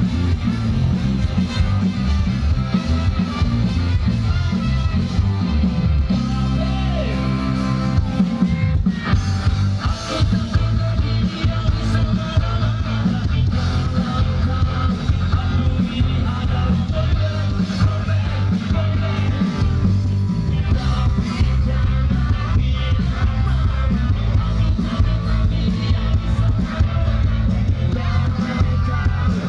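A live rock band playing loud through a stage PA, with electric guitar, a heavy bass and drum low end, and a singer.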